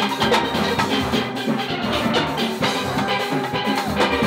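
Steel band music: steelpans playing a quick, rhythmic tune over drums.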